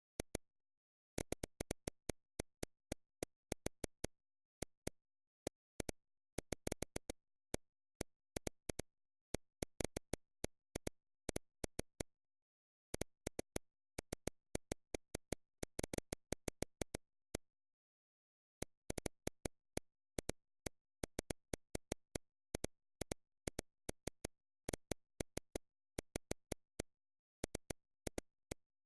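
Irregular sharp clicks coming in quick clusters, with dead silence between them and a pause of a couple of seconds about two-thirds of the way through.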